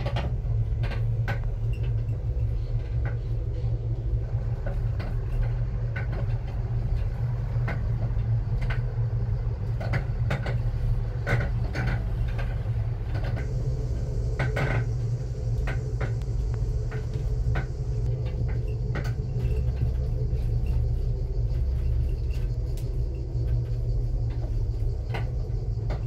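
Steady low rumble inside a moving Teleférico de Madrid cable car cabin, with scattered light clicks and knocks.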